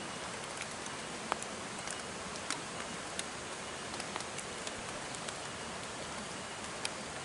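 Steady hiss of rain, with scattered sharp ticks of drops landing.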